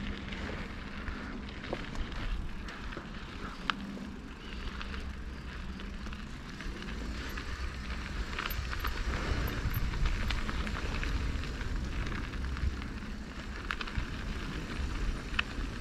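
Mountain bike rolling down a dirt trail: tyres crackling over dirt and loose rock, with sharp clicks and rattles from the bike now and then over a low rumble of wind on the microphone.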